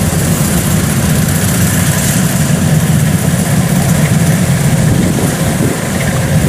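Kubota DC-105X combine harvester's diesel engine running steadily as the machine cuts standing rice.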